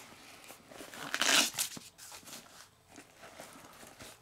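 Plastic packaging crinkling and rustling as unboxed items are handled, with the loudest crinkle about a second in.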